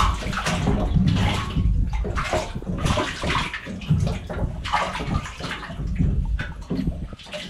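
Seawater sloshing and splashing against a small fishing boat's hull in irregular surges, over a steady low rumble.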